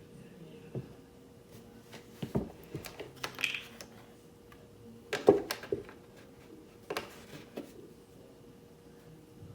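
Scattered light knocks and clatters of kitchen items being handled and set down on a counter, the loudest about five seconds in, over a faint steady hum.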